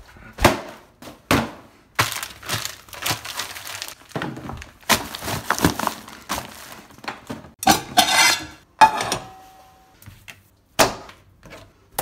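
Rubbish in a pedal bin being pressed down by hand, plastic bags and packaging crackling and crunching, amid a string of sharp knocks from the bin's lid and rim.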